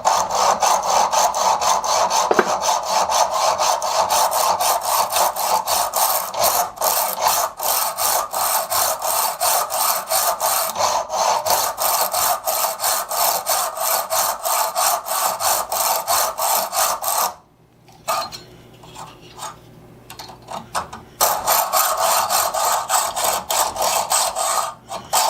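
A hand hacksaw cuts through a stainless steel bolt held in a vise with steady back-and-forth strokes. The sawing stops for a few seconds about two-thirds of the way in, then starts again.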